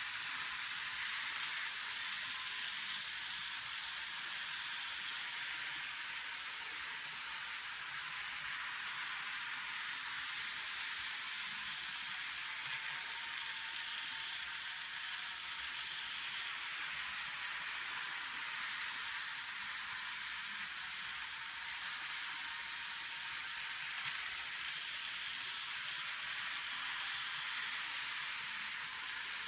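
N scale model trains running on a two-track oval, a New Haven 0-6-0 steam locomotive and a Pennsylvania RR Keystone Limited. Their small motors and wheels on the rails make a steady high hiss and whir.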